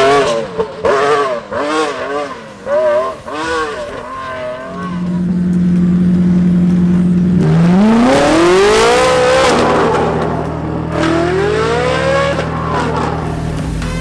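Race car engines at a hill-climb, revving hard with the pitch swinging up and down about twice a second. From about five seconds in one engine holds a steady note, then revs up in two long rising and falling sweeps.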